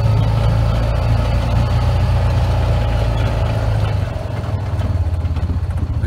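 Vehicle engine running steadily, then about four seconds in settling to a slightly quieter, evenly pulsing idle.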